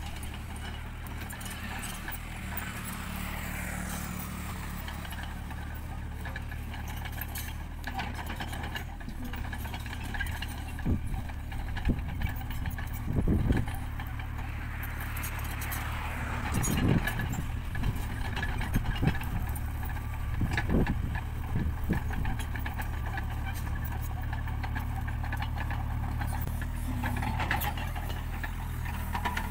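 Tata Hitachi Zaxis 33U mini excavator's diesel engine running steadily under load while it pushes and levels soil with its dozer blade. Louder clanks and scraping come and go in the middle.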